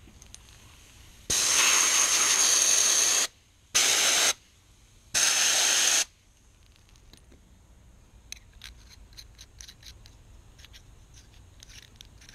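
Compressed-air gun blasting air over a stripped metal fishing-rod reel seat in three bursts: a long hiss of about two seconds, a short one, then one of about a second. Faint clicks and handling sounds follow.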